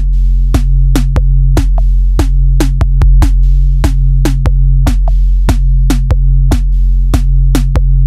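Background music: a fast, regular beat of sharp percussive hits over sustained deep bass notes.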